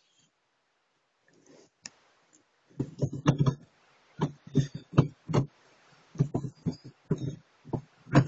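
Irregular knocks and clicks of a hand handling the plastic interior trim around the gear lever inside a small car cabin. There is a single click near two seconds in, then from about three seconds a quick run of several knocks a second.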